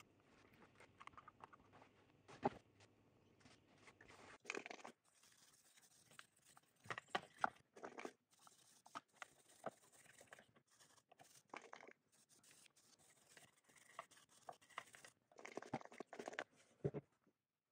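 Faint, irregular scratching and scrubbing strokes with scattered small clicks, from a brush working over the underside of a circuit board as it is washed.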